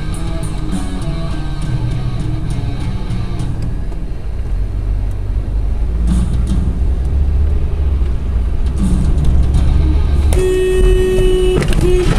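Car driving noise, a low rumble, under background music. Near the end a car horn sounds, held for just over a second, then a short toot.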